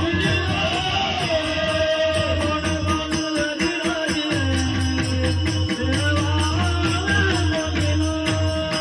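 Varkari bhajan music: a voice singing a wavering melody over pakhawaj drums and many pairs of small brass hand cymbals (taal) struck in a fast, even rhythm.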